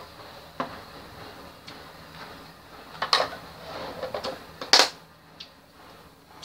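Tableware knocks while eating: chopsticks and dishes clicking and clattering, with a few small knocks and two louder ones about three seconds and just under five seconds in.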